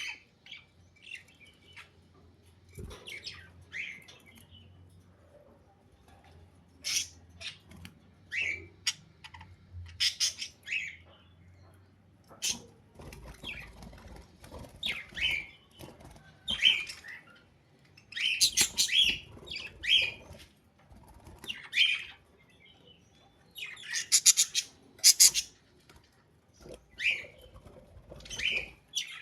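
Budgerigars calling in short, scattered chirps, some coming in quick runs of several notes.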